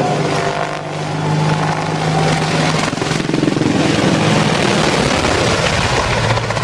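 Helicopter flying close by: a steady low hum from the rotor and engines over a loud noisy wash, turning rougher after about three seconds.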